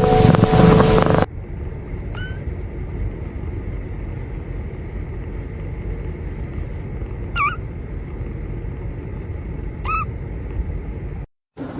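Three faint, short squeaky chirps from a sleeping cat over a steady low rumble; a music track cuts off about a second in.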